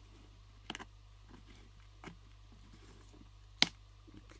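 A few small clicks and taps from a thin pry blade worked along the edge of a smartphone's back cover as it is cut free of its adhesive, with one sharp, louder click near the end.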